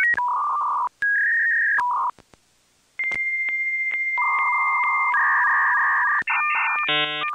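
Dial-up modem connection sound: quick runs of paired dialing beeps, a short pause, then a steady high answer tone clicking about twice a second, giving way to warbling, buzzing handshake tones near the end.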